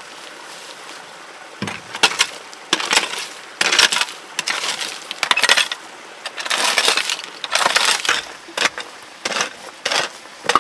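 Short-handled hoe chopping and scraping into stony, gravelly soil, with stones clinking and grating. The strikes are irregular, roughly one every second, and begin after a quieter second or two.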